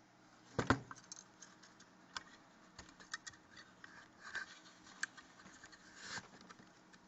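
Clicks, taps and light scrapes of small parts being handled on a homemade spiral-packing winding jig, with a sharp double knock a little over half a second in and scattered lighter ticks after it.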